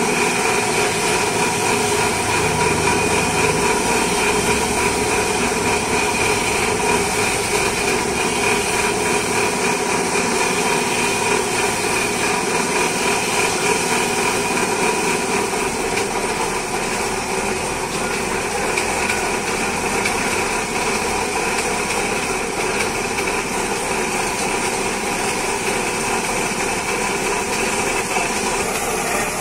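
A steady machine drone holding several constant tones, with no breaks or changes.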